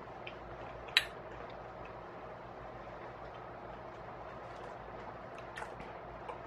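A spoon knocking against a ceramic baking dish: one sharp click about a second in, then a few faint clicks over a low steady room hum.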